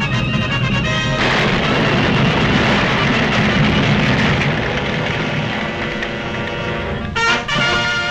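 Orchestral cartoon score playing loud and dramatic, with a low rumble underneath. About seven seconds in it breaks off briefly and a new chord comes in.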